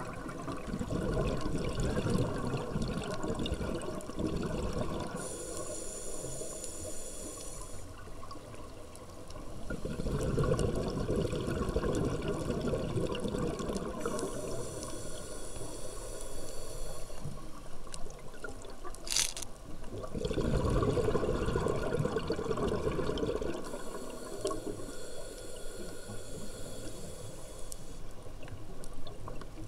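A scuba diver's regulator breathing underwater: a gush of exhaled bubbles alternating with a hissing inhale, about three slow breaths. There is a brief sharp high sound about two-thirds of the way through.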